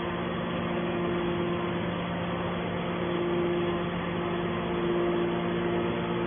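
Hydraulic scrap metal baler running: a steady hum of its electric motor and hydraulic pump, with a higher humming tone that fades and returns.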